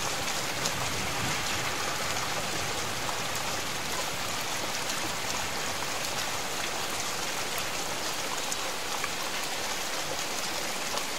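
Steady rain falling during a thunderstorm, with scattered drops ticking close by.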